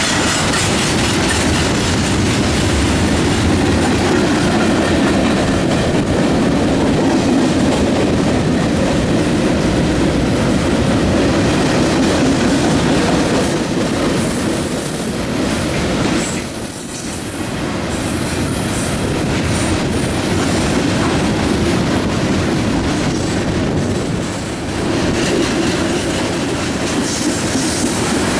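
Two freight trains rolling past on adjacent tracks: a steady loud noise of freight car wheels running on the rails. Partway through, a thin high wheel squeal sounds for several seconds.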